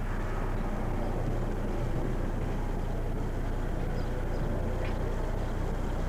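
A steady background hiss with a constant low hum underneath, and no distinct events.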